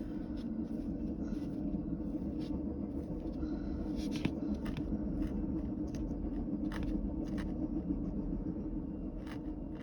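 Faint scratching and small clicks of a tool poking and handling acrylic yarn, over a steady low hum.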